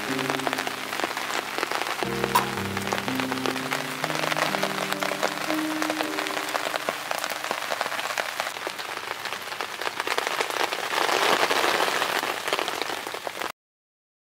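Steady rain pattering, with soft background music playing a slow melody for roughly the first half and one light knock about two seconds in. The rain grows louder near the end, then the sound cuts off suddenly.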